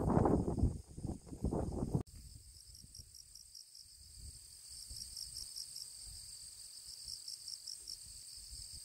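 Wind buffeting the microphone for about two seconds, then, after a sudden cut, insects chirping: a steady high buzz with repeated bursts of quick pulses, about six a second.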